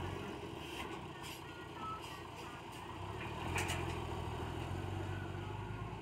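Dump truck's diesel engine running, dropping back briefly and then picking up again as the truck pulls forward from its dumped load of dirt, with a few sharp knocks.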